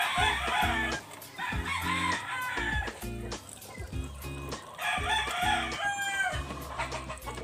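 Rooster crowing three times, each crow lasting a second or so.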